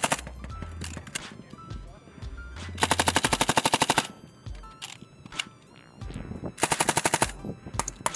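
Light machine guns (M249 SAWs) firing on a range: a burst cut off right at the start, a long rapid burst about three seconds in and a shorter one near seven seconds, with scattered shots from other guns on the firing line in between.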